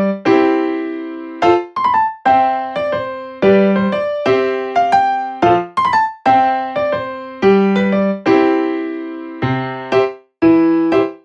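Background music: piano or electric piano playing a steady chord pattern, each chord struck sharply and left to fade.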